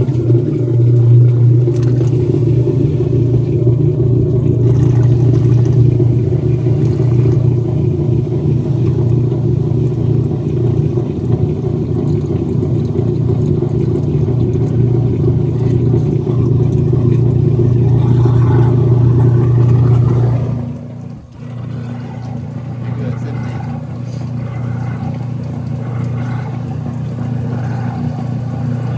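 Whirlpool direct-drive top-load washer draining: its drain pump runs with a loud, steady hum. About 20 seconds in the sound drops away briefly, then a quieter hum carries on.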